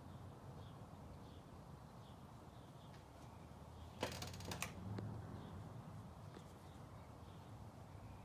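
Quiet ambience with a bird chirping faintly, over and over. A brief burst of clicks and rustling about four seconds in.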